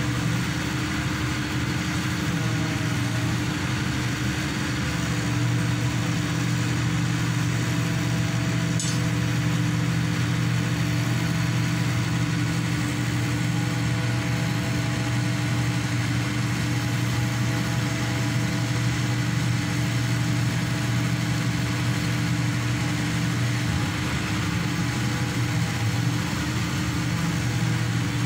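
Hydraulic static pile driver's engine and hydraulic power pack running steadily.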